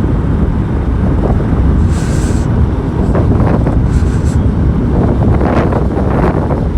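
Wind buffeting the microphone of a moving motorcycle, a loud steady low rumble with road and engine noise beneath and brief hissy gusts about two and four seconds in.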